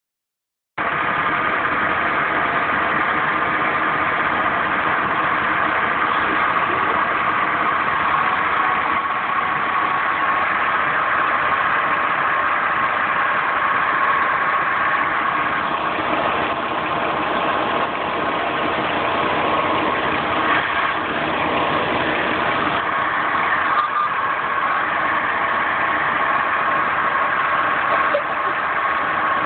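Car engine idling steadily with a constant tone running through its noise, which the owner suspects is a failing water pump.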